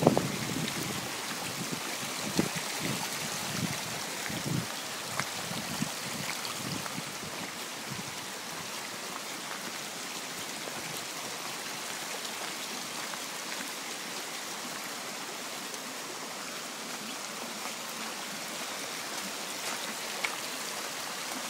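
Heavy-rain runoff rushing down a steep hill as a shallow, churning torrent: a steady rushing and splashing of water. A few low thumps come in the first several seconds.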